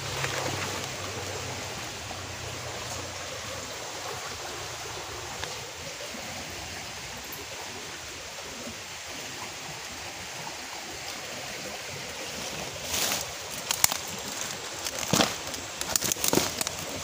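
Steady rushing of running water, like a stream. In the last few seconds come several sharp crackles and snaps of dry leaves and twigs as brush is pushed aside.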